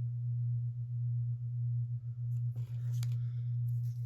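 A steady low hum, with a short rustle of paper being handled about two and a half to three seconds in.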